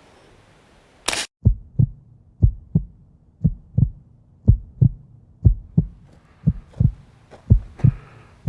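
Heartbeat sound effect: pairs of deep thumps, lub-dub, about once a second over a faint steady low hum. It is preceded about a second in by a single short, sharp burst.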